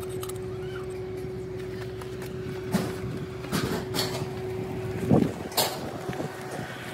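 A steady machine hum with one held tone, and a handful of sharp knocks and clanks, metal on metal, in the second half, the loudest about five seconds in.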